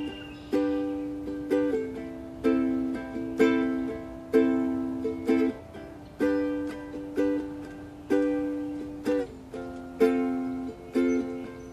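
Solo acoustic ukulele strumming chords, a strong strum about once a second with a few quick extra strums between, the chord changing every couple of seconds.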